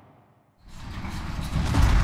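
A low rumble dies away to near silence, then about half a second in a new rushing sound swells up quickly and builds, leading into the soundtrack music.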